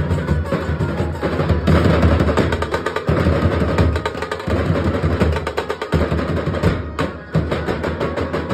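A Nasik dhol ensemble: several large barrel-shaped dhol drums beaten with sticks in a fast, driving rhythm, with a brief break about seven seconds in before the beating picks up again.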